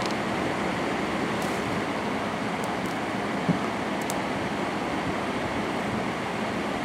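Steady rushing of an electric fan running close by, with a few faint high clicks and one brief soft knock partway through.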